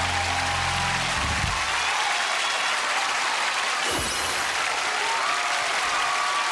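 Studio audience applauding, over the last held chord of a pop ballad that dies away about a second and a half in.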